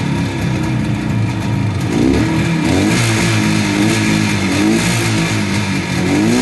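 1972 Suzuki T500's two-stroke parallel-twin engine running on a stationary bike, idling with a few short throttle blips that briefly raise its pitch, from about two seconds in and again near the end.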